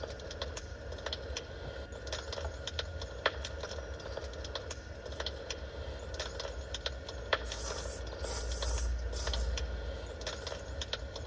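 Crackling of a wood fire from a fireplace-sound recording: irregular pops and snaps over a steady low hum. A louder hiss joins it for a couple of seconds near the end.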